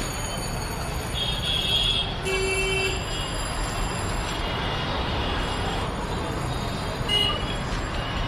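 Street traffic noise, a steady mix of passing vehicles, with a short horn toot about two seconds in and a brief sharper sound near the end.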